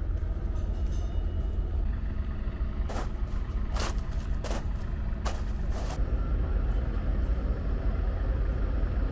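Boots crunching through snow, four steps close together about three seconds in, over a steady low rumble.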